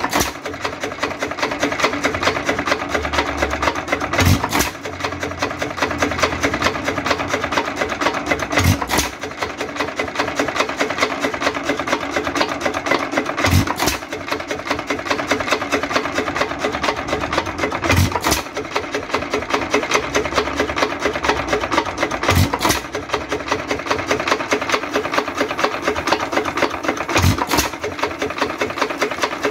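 Vintage Associated Chore Boy single-cylinder hit-and-miss engine running warm and steady: a rapid, even clatter of its running gear as the flywheels coast, broken by a single firing stroke about every four and a half seconds. Each stroke is a hit followed by a long miss cycle, the sign of the engine running lightly loaded and firing reliably.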